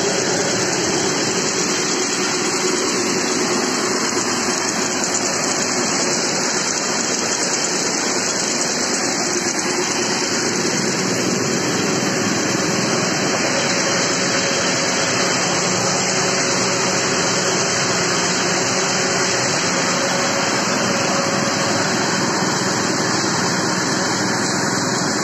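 Groundnut harvester (pod separator) and its drive engine running steadily under load while separating peanut pods, an even loud machine noise with a low hum.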